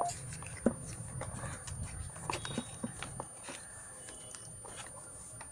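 Handling noise as a feature phone is lifted from its cardboard box and its clear plastic protective film is peeled off: scattered light clicks, taps and rustling, with a few faint short beeps.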